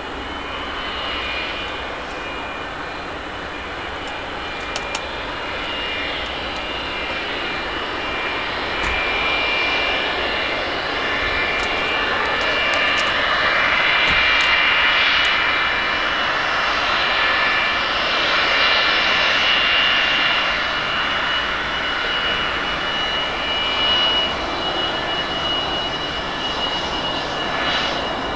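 Jet airliner engines: a steady rushing noise with a high whine. It swells to its loudest about halfway through, then eases off.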